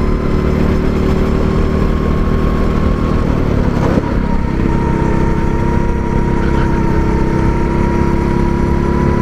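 A 270 cc go-kart engine running at speed, heard on board the kart. Its note dips briefly about four seconds in, then holds steady again.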